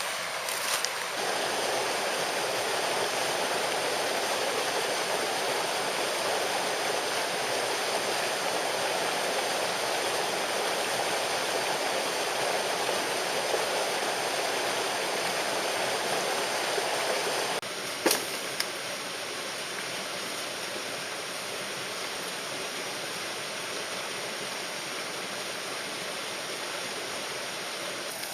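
Steady rush of a mountain stream flowing over rocks. About eighteen seconds in it turns a little quieter, with a single sharp click.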